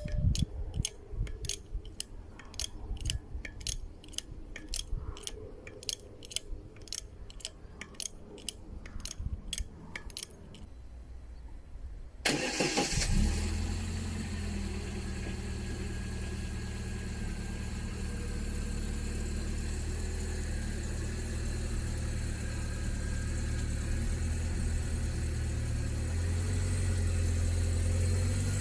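A jack being worked against a steel pipe stuck in the ground, clicking about twice a second for some ten seconds. Then, about twelve seconds in, the Niva Travel's engine starts and settles into a steady idle.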